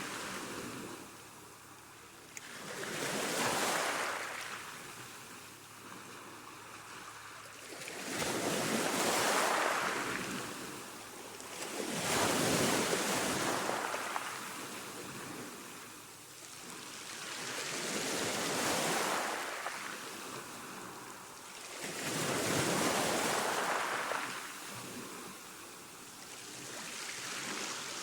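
Calm ocean waves washing onto the shore, each wash swelling and fading away, about six of them a few seconds apart.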